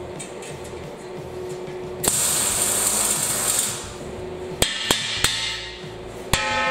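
A hammer striking a steel tank: a few sharp blows in the second half, the last one about six seconds in leaving the metal ringing. A hiss lasting about a second and a half comes about two seconds in, over background music.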